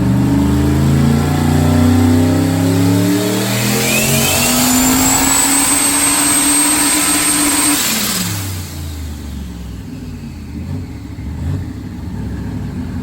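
Turbocharged LS V8 in a Holden Commodore doing a full-boost dyno pull at 23 psi: the engine climbs steadily in pitch under load, with a rising turbo whine over it. About eight seconds in the throttle closes and the engine winds down.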